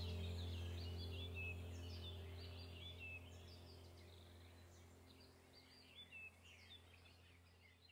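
Soft ambient background music fading out, its low sustained drone dying away, with birdsong of small chirps and twitters going on faintly throughout.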